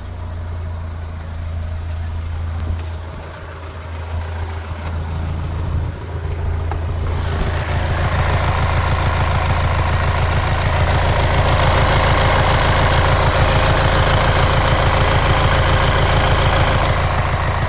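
VW Transporter T6's 2.0 TDI four-cylinder diesel (CXHA engine) idling at a steady speed with a rapid clatter, the strange noise under investigation. About seven seconds in it gets louder and harsher, with no change in engine speed.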